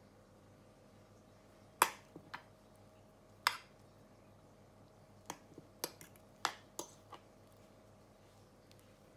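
A metal fork and a small bowl clinking against a glass baking dish as beaten egg is spread over mashed potato: about a dozen short, sharp clinks, the two loudest about two and three and a half seconds in, and a quicker run of lighter taps a little past halfway.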